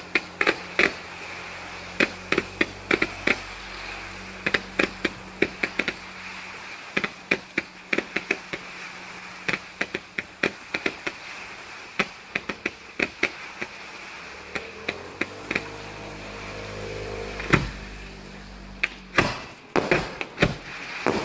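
Fireworks display fired over water: a rapid, irregular string of sharp cracks and bangs from fountains, comets and low-bursting shells, over a steady hiss. The loudest bang comes about two-thirds of the way in, followed by a dense flurry of reports near the end.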